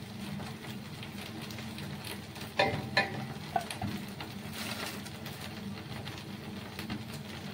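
Kitchen work while making rotis: a few sharp clinks of utensils around three seconds in, over a steady low hum.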